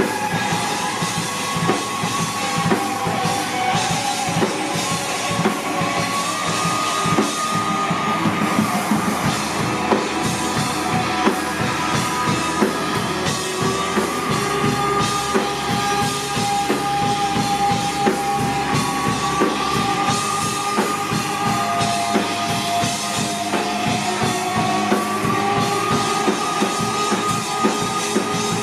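Rock band playing: drum kit keeping a steady beat under electric guitar, with a long held melody line that moves in steps.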